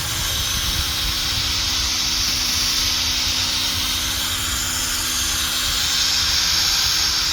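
Cordless drill spinning a 500-grit sanding pad against a plastic headlight lens: a steady motor whir under a continuous sanding hiss.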